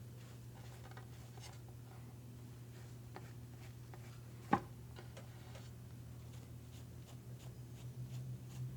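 Faint scratchy rubbing and light ticks of a wipe being worked over a baby sulcata tortoise's shell, with one sharp click about four and a half seconds in, over a steady low electrical hum.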